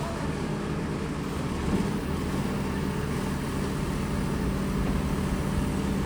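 Heavy construction machine's engine running steadily at an even speed, a low continuous hum.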